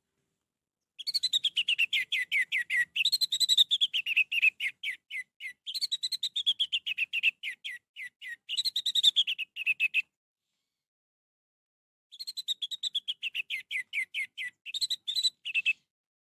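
Orange-headed thrush singing: long runs of quick, high, downward-slurred notes, several a second, broken by a pause of about two seconds midway.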